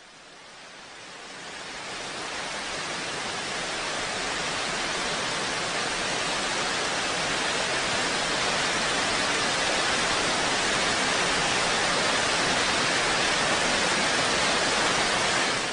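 Steady rushing hiss of noise that swells up over the first few seconds, then holds level until it cuts off sharply at the end.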